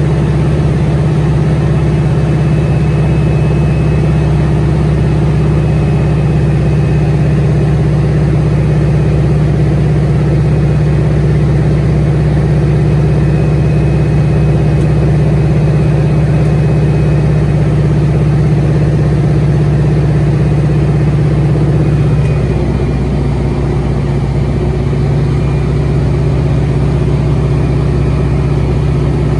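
A North American Harvard's nine-cylinder Pratt & Whitney R-1340 Wasp radial engine and propeller droning steadily in flight, heard from the cockpit with air rushing past. About 22 seconds in, the engine note drops a little lower and slightly quieter.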